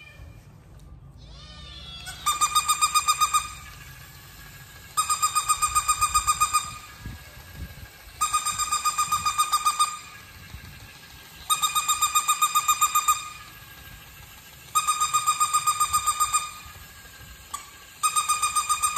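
Electronic bark of a battery-operated plush toy puppy: bursts of rapid, identical high-pitched beeps at one fixed pitch, each about a second and a half long, repeating every three seconds or so, six times.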